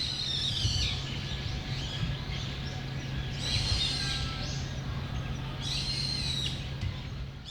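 Wild birds calling in three short bouts of high, arching calls, over a steady low rumble.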